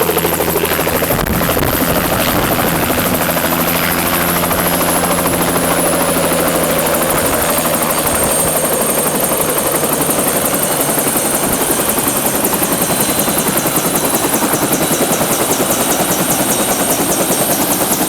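Helicopter close by, coming in to land: steady loud rotor and engine noise with a high whine that glides down in pitch about seven seconds in.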